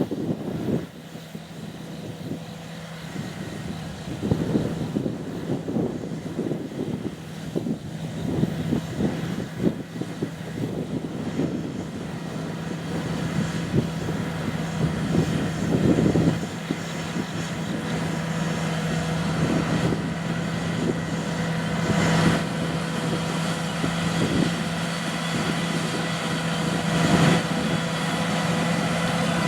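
Diesel engine of a John Deere 8360RT track tractor pulling a seeding air drill, running steadily with a constant low drone that grows gradually louder.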